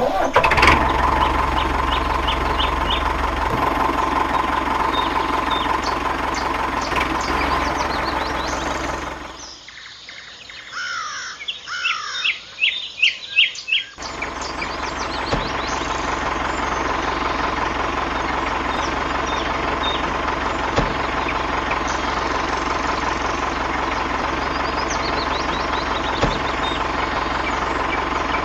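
A steady engine sound of the kind laid over model tractors, with birds chirping over it. About ten seconds in, the engine drops away for a few seconds, leaving clear bird calls. Then the engine comes back and runs steadily.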